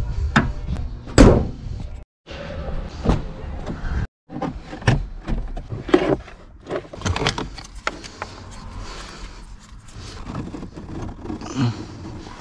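A run of separate knocks and clunks, as of objects being handled and set down, broken by two brief silences in the first few seconds.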